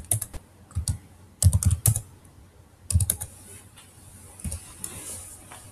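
Typing on a computer keyboard: quick runs of keystrokes in short bursts, stopping about three seconds in.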